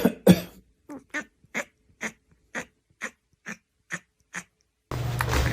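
A pet animal giving a series of short, evenly spaced calls, about two a second, after two louder ones at the start. Near the end a steady noise with a low hum comes in.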